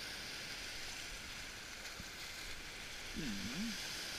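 Waves washing and breaking over a rocky shore, a steady hiss of surf. About three seconds in a voice makes a short wavering hum.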